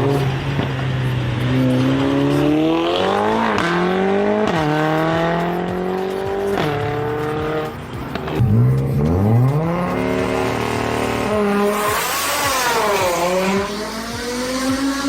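High-revving performance car engine accelerating hard through the gears: the pitch climbs and drops sharply at each upshift, three times in the first seven seconds, then pulls up again from low revs and swings down and back up near the end.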